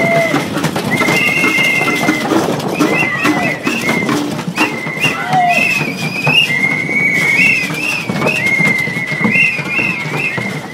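A high, whistle-like tune, long held notes broken by short higher notes, over steady hand drumming and crowd noise.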